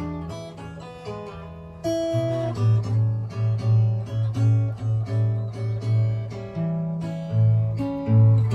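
Acoustic guitar played by hand: a chord strummed about two seconds in, then picked notes over a repeating low bass note, about three a second.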